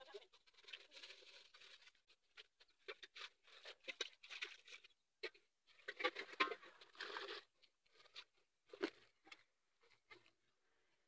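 Aluminium cooking pots (sufuria) being washed by hand: irregular scrubbing and scraping strokes with water splashing and an occasional knock of a pot, busiest about six seconds in.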